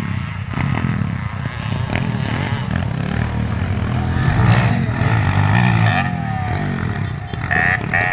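Motocross dirt bike engines revving and backing off as the bikes ride the dirt track, the engine note rising and falling.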